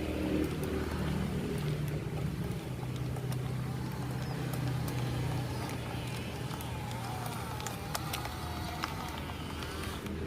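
Engine of heavy earthmoving machinery running steadily, with a low even drone.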